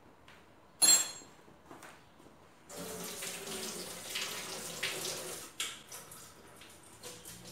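A sharp metallic clink with a brief ring about a second in, a steel spoon striking the cookware. Then about three seconds of running, splashing water.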